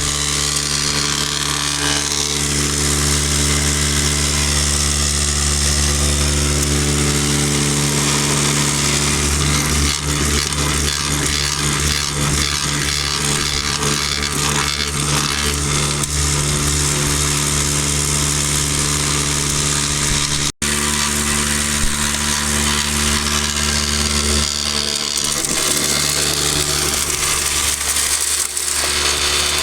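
Electric non-air drywasher running: a steady motor hum under a continuous rattling hiss as the unit vibrates. It breaks off for an instant about two-thirds through, and the deep part of the hum fades near the end.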